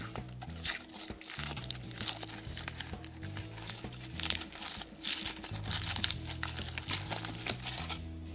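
Foil wrapper of a chocolate surprise egg crinkling and crackling as it is unwrapped by hand, over background music.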